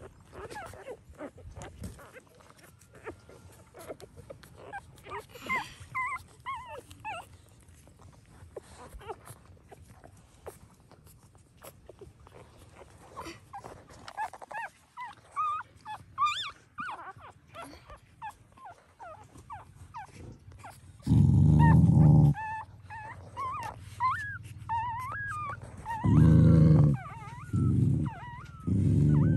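Newborn puppies squeaking and whimpering while they nurse, with many short, high, wavering cries. In the last third, four much louder low rumbling sounds come, each up to about a second long.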